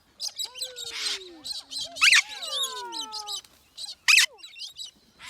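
Several parrots and cockatoos calling at once: falling whistles and chirps, with loud harsh screeches about two seconds in and again about four seconds in.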